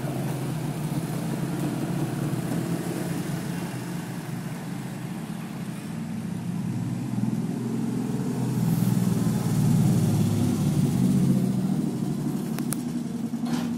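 Motor road traffic running past, a steady low rumble that grows louder about seven seconds in as a vehicle passes close, then eases off.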